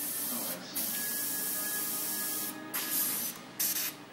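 Airbrush spraying with a steady hiss, the air cutting off briefly once near the start and several times in the second half.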